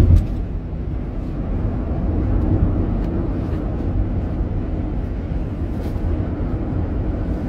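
Road noise inside a moving car's cabin: a steady low rumble of engine and tyres, with a brief thump right at the start.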